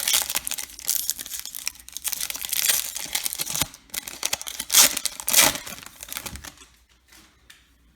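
A foil baseball card pack wrapper crinkling and being torn open by hand. The noise fades to a few faint ticks near the end as the cards are handled.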